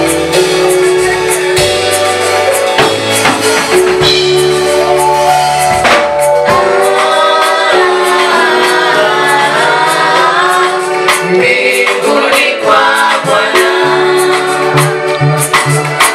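Gospel song sung by a choir with instrumental backing and drums.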